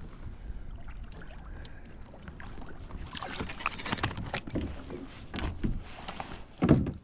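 A largemouth bass being landed and handled in a kayak: water splashing and the metal spinnerbait and hooks jingling, busiest about three seconds in, with a thump near the end.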